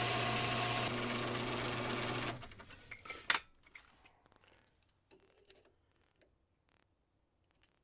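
Worn 1935 South Bend belt-driven lathe running steadily with a mechanical drone of several steady tones, which dies away about two and a half seconds in as the lathe stops. A sharp click follows, then faint clicks of metal being handled.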